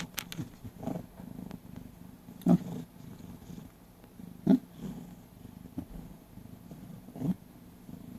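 A domestic cat purring close to the microphone: a steady low purr with a few louder pulses along the way.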